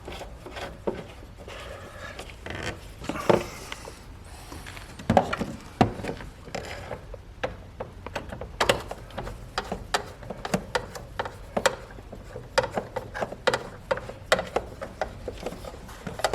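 A hand tool driving in the two lower screws of a car headlight assembly: a long series of irregular sharp clicks with metal-and-plastic rubbing between them, the clicks coming more often in the second half.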